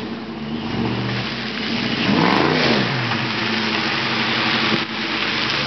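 2003 Ford Mustang GT's 4.6-litre V8 through an SLP aftermarket exhaust, accelerating as the car pulls away and draws closer, growing louder. About two seconds in the engine note rises and falls sharply once, then runs loud and steady.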